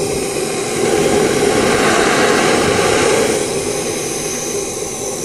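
Steady, loud hiss of pressurized spray jetting from a metal wand nozzle pushed through a hole into a car taillight.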